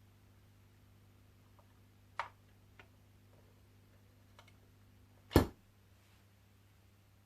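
A faint, steady low hum, with a few light clicks and one loud, sharp knock about five seconds in.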